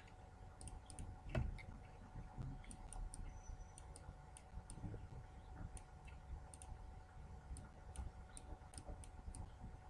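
Faint computer mouse clicks, a dozen or so at irregular intervals, over a steady low hum.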